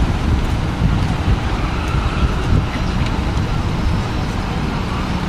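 Steady city street traffic noise with a heavy, churning low rumble throughout and no distinct single events.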